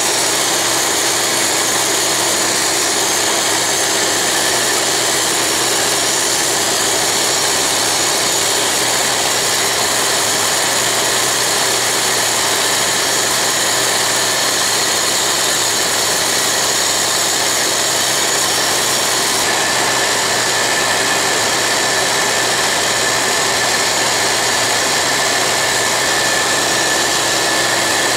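Dumore toolpost grinder running at speed, its abrasive wheel grinding the 60-degree point of a steel lathe center turning in reverse on the lathe, mixed with a vacuum cleaner drawing off the grinding dust. It is a loud, steady whine-and-rush, and a higher steady tone joins about two-thirds of the way through.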